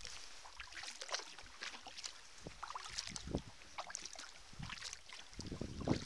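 Kayak paddling on open water: irregular splashes and drips of water off the paddle blades over a steady hiss. Wind buffets the microphone in low rumbles near the end.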